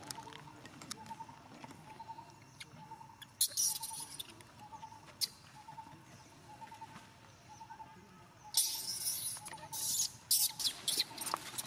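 Dry leaf litter rustling and crunching in short bursts as monkeys move about on it, loudest in a few clusters partway through and near the end. Under it, a faint short chirp repeats about twice a second.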